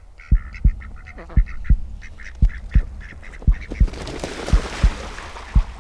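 Intro soundtrack: duck quacking over a steady beat of paired low kick-drum thumps about once a second, with a rushing whoosh swelling about four seconds in.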